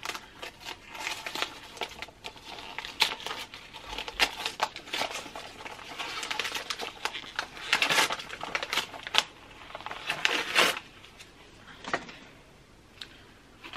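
A small advent-calendar box and its packaging being opened by hand: an irregular run of crinkling, crackling and tapping, loudest about eight and ten seconds in, dying away near the end.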